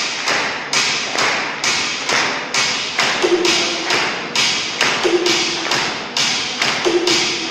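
A steady beat of sharp, echoing hits, about two a second, like rhythmic clapping or stamping in a large hall, with a short low tone three times along the way.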